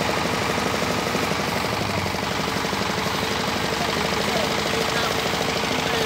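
Daedong DSF75 combine harvester's diesel engine running steadily, with a rapid, even throb and a steady hum.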